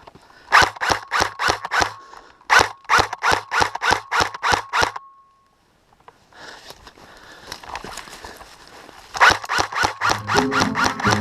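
Airsoft gun firing two strings of rapid sharp shots, about five a second, with a pause of a few seconds between them; the second string starts near the end as music comes in.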